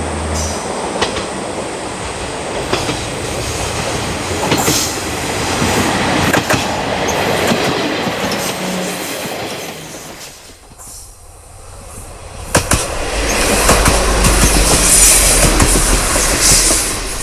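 JR Kyushu KiHa 40-series diesel railcar running past close by, its wheels clacking over the rail joints under the engine's rumble. The sound dips briefly about ten seconds in, then swells up loud again.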